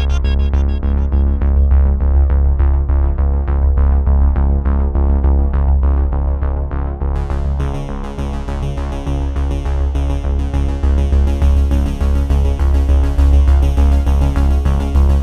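Background electronic music: synthesizer over a steady pulsing beat, with a brighter layer coming in about seven seconds in.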